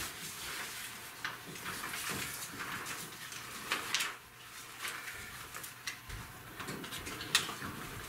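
Paper rustling as sheets are handed along and shuffled on a table, with scattered light clicks and taps; one louder click about seven seconds in.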